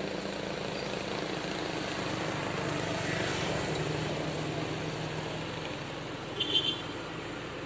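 A motor vehicle passing on the road: a steady engine sound that swells to about three or four seconds in and then eases off. About six and a half seconds in, a short high-pitched squeak stands out briefly.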